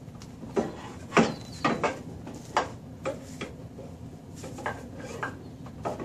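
Irregular metallic clicks and knocks as parts and tools are handled on a car's front hub and suspension during reassembly, about ten separate impacts, the loudest in the first three seconds.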